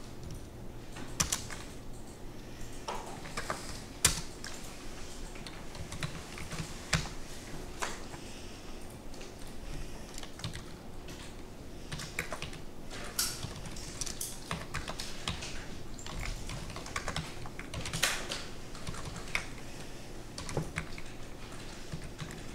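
Computer keyboard being typed on in short, irregular keystrokes, with a steady low hum underneath.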